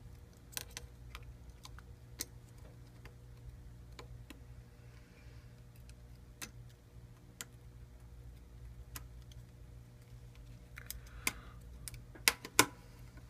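Scattered small clicks and taps of phone parts being handled as a smartphone's logic board is fitted back into its frame, with a few louder clicks near the end as it clicks into place.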